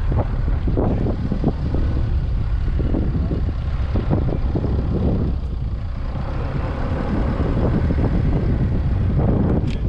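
Car driving over a bumpy dirt and grass track: a steady low rumble from the engine and tyres, with many irregular thumps and knocks as the car rides over the ruts.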